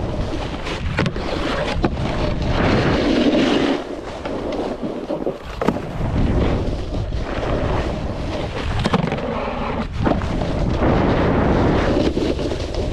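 Wind rushing over the microphone and a snowboard sliding over snow during a run, swelling and easing every few seconds, with a few sharp knocks.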